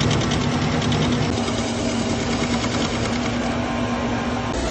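Metal lathe running, its turning tool cutting a steel sprocket blank: a steady machine hum with one constant tone, which breaks off abruptly near the end.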